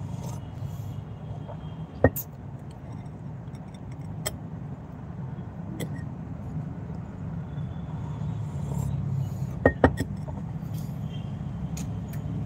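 A steady low hum, broken by a few sharp clicks: one about two seconds in, others around four and six seconds, and a quick pair near ten seconds.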